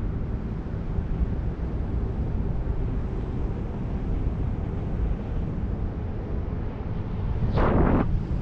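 Airflow buffeting the microphone of a paraglider pilot in flight, a steady low wind noise, with one brief louder whoosh about seven and a half seconds in.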